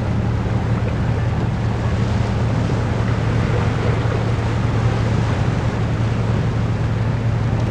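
Wind buffeting the microphone over waves washing against a rocky shore, under a steady low drone.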